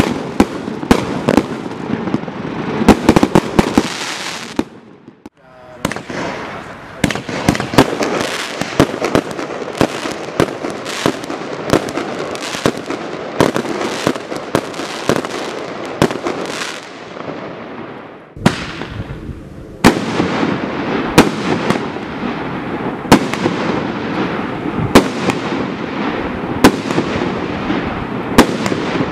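Consumer firework barrage cakes firing: a rapid string of sharp bangs over dense crackling, with short lulls about five seconds in and again near eighteen seconds.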